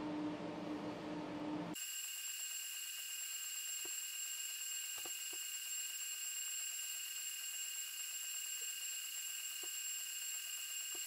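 Steady low hum and hiss, then about two seconds in an abrupt switch to a steady high-pitched whine of several fixed tones, with a few faint clicks. It fits the drive of a resin 3D printer's build platform as it lifts the printed parts out of the resin vat.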